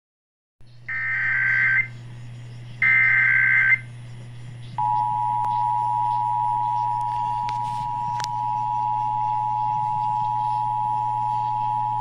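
Emergency Alert System test broadcast on AM radio, heard through the radio's speaker: two short bursts of digital header data tones, then, about five seconds in, the steady two-tone attention signal starts and holds. A steady low hum runs underneath.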